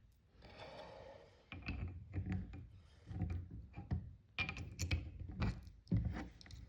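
Small metal ratchet parts being handled and fitted back into a Quinn 1/2-inch ratchet head during reassembly: irregular light clicks and taps mixed with rubbing and scraping.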